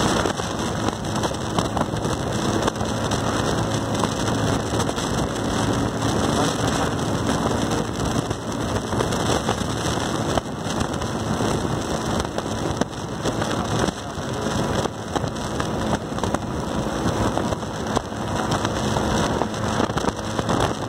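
Vehicle travelling at speed on a highway: a steady rush of wind and road noise, with a faint low engine hum underneath.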